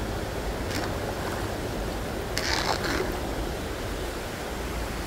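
Closed umbrella sweeping through shallow floodwater to push a stranded fish along, with one short splash about two and a half seconds in, over a steady rushing background.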